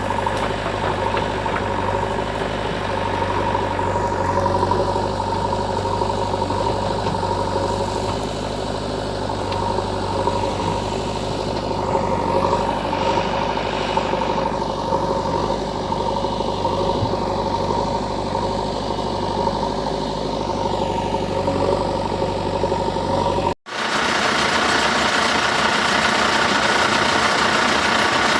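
Engine running steadily at idle. About 23 seconds in it cuts out for a moment and is followed by a hissier engine sound with less low end.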